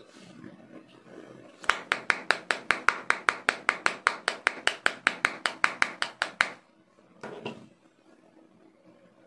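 Metal key tip scraped rapidly back and forth across a phone's glass screen in a scratch test, about six sharp scratching clicks a second for roughly five seconds. A brief rustle of handling follows near the end.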